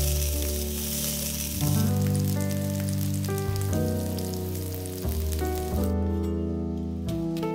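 Sliced red onion sizzling in hot oil in a frying pan, the sizzle dying away about six seconds in. Background music runs underneath throughout.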